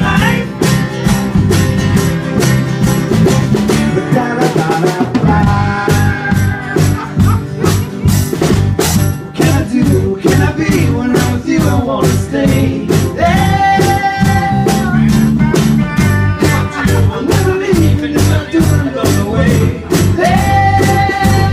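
Live band playing: strummed acoustic guitars, electric bass and a drum kit keeping a steady beat, with several voices singing together. The bass drops out briefly about four seconds in, and long held sung notes come around the middle and near the end.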